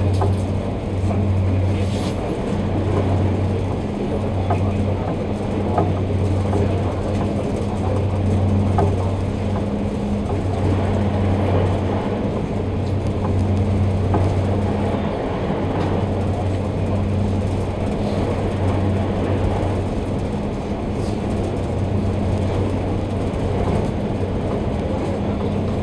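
High-speed passenger ferry under way, heard from inside the passenger cabin: a steady low engine drone that swells and fades every second or two, over the rumble and wash of the hull running through the water.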